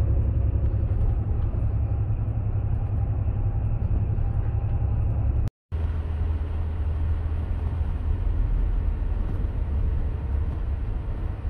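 Steady low rumble of a moving vehicle heard from inside, cut off briefly about halfway through and then resuming.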